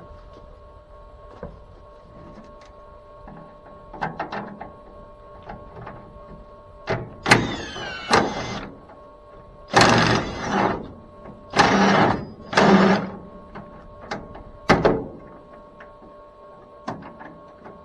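A power tool runs in short bursts, about six of them between roughly 7 and 15 seconds in. In some bursts the pitch slides downward as the tool spins down. It fits bolts being run off during disassembly. A faint steady hum runs underneath.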